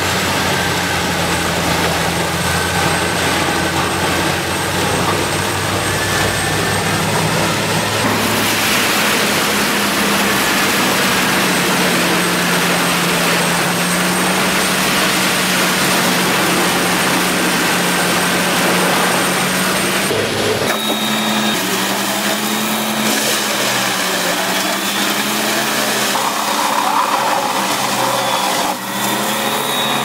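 Large engine-driven trailer-mounted wood chipper running steadily under load as it shreds logs, with a steady rush of chips over the engine. The engine note changes abruptly twice, about eight and about twenty-one seconds in.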